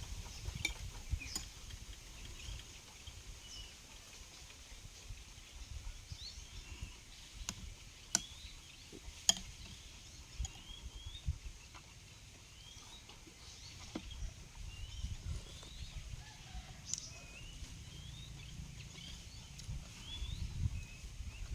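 Birds chirping: many short rising chirps, over a low rumble, with a couple of sharp clicks near the middle.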